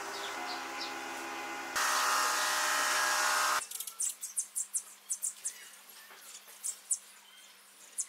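A steady drone of several held tones, louder from about two seconds in, cuts off abruptly a little past the middle; after it, small birds chirp in short, high, rapid calls.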